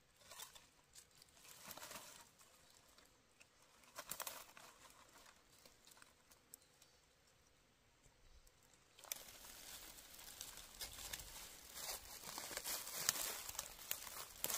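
Dry fallen leaves rustling and crackling as a baby monkey crawls over the leaf litter: scattered short bursts at first, then steadier, louder rustling from about nine seconds in.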